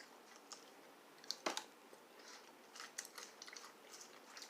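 Close-up chewing of a salad with seeds: soft, irregular crunches and mouth sounds, with one sharper crunch about a second and a half in.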